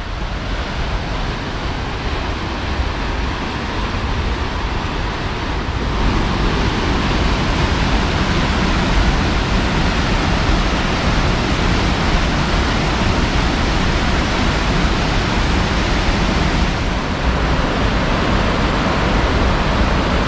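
Stevens Creek rushing down a rocky cascade: a steady rush of water that gets louder about six seconds in.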